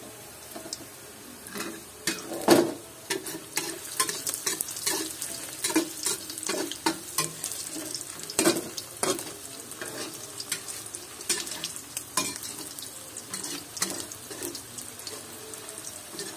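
Sliced sausages sizzling in hot oil in a wok, with a metal spatula scraping and knocking against the pan as they are stirred. The sizzle runs steadily under many short clicks, with louder knocks about two and a half and eight and a half seconds in.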